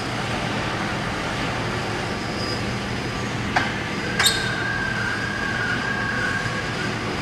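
Automatic bakery loading station running with a steady mechanical hum. Two sharp clacks come about three and a half and four seconds in, and a steady high whine follows for a couple of seconds.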